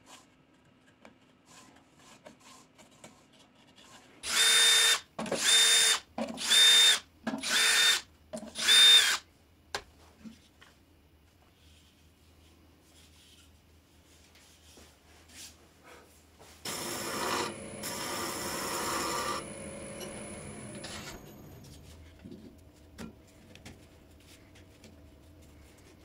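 Cordless drill run in five short trigger bursts of about half a second each, each with a steady motor whine. About two-thirds of the way in comes a longer, noisier power-tool run of some three seconds that trails off.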